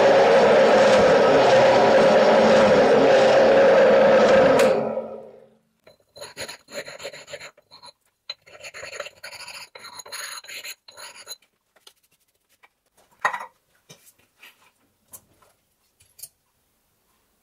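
Metal shaper running steadily as it cuts a dovetail in a metal bar, dying away about five seconds in. Then a run of short scraping strokes on the metal, followed by a few light clicks and taps as a caliper is set against the part.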